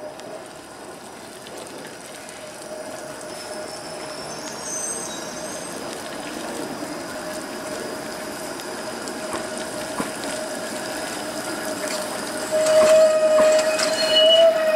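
Flexity Outlook low-floor streetcar rolling slowly around a tight loop curve, its steel wheels giving a steady squeal that builds and becomes loud near the end.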